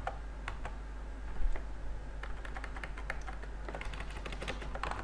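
Computer keyboard keystrokes, typed in irregular taps with a quicker run of keys near the end, over a low steady hum.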